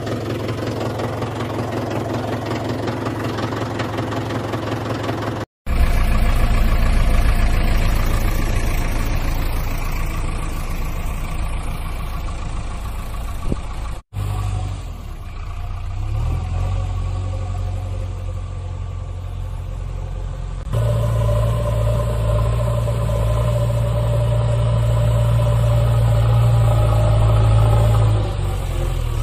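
Steady engine drone. It cuts out briefly twice, about five and a half and fourteen seconds in, and resumes changed each time. About twenty-one seconds in it steps up to a louder, deeper hum.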